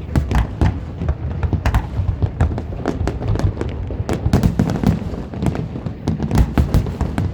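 Aerial fireworks display going off: rapid, overlapping bangs and cracks several times a second over a continuous low rumble of booming shells.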